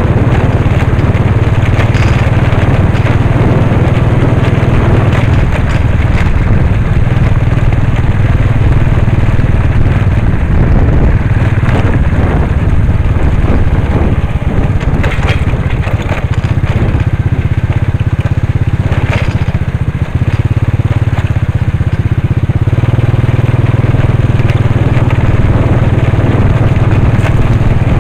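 Motorcycle engine running steadily on a rough dirt trail, with constant rattling and knocking from the bumps. The engine eases off briefly about two-thirds of the way through, then picks up again.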